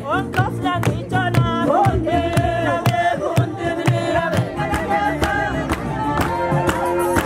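A group of women singing a traditional Hadiya song together, over a steady beat of a large hand-struck drum and hand clapping.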